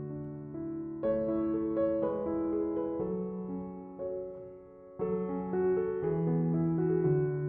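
Background piano music: slow, held chords that change about once a second, fading a little just before a new chord comes in about five seconds in.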